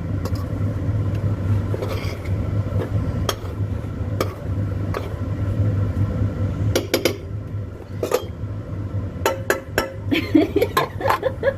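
A spatula scraping and clinking against a frying pan as rice is stirred, in irregular knocks, over a steady low hum.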